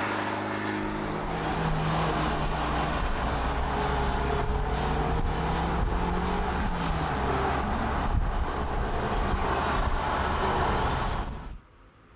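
Fiat 500 TwinAir's two-cylinder turbocharged engine running on the move, its pitch rising and falling as the revs change, over road and wind noise. The sound drops away suddenly near the end.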